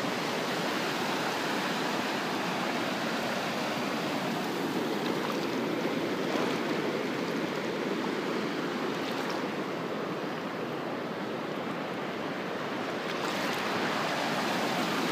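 Shallow ocean surf washing over the sand around bare feet: a steady rushing wash of water.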